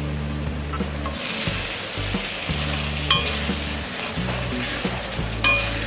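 Tomato-onion masala gravy sizzling and bubbling in a pan as a spoon stirs it. The spoon knocks against the pan twice, about three seconds in and again near the end.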